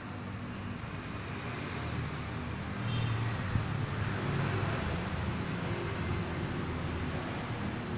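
Road traffic noise: a steady rumble of passing vehicles with shifting engine hum, growing a little louder about three seconds in.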